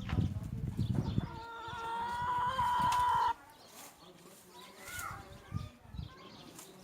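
A rooster crowing: one long call of about two seconds, starting about a second in and ending abruptly.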